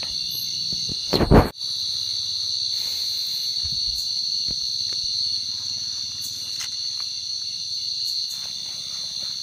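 Steady high-pitched chorus of night insects trilling, with one loud thump about a second in.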